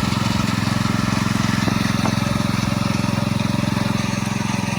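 Power trowel's petrol engine running steadily at a constant speed as the slab is machine-finished.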